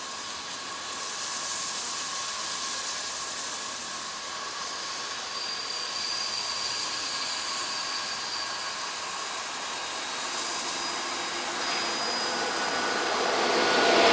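Steam locomotive 141 R 1126, a 2-8-2, approaching with its passenger train: a steady hissing rush with no distinct exhaust beat, growing louder toward the end as it draws near.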